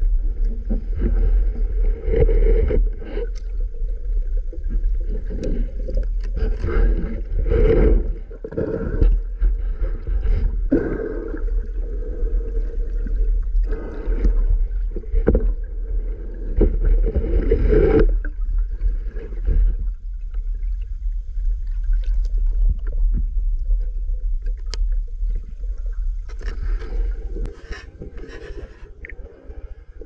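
Water sloshing and gurgling around an underwater camera during a dive, in repeated swells every few seconds over a steady low rumble that fades out near the end.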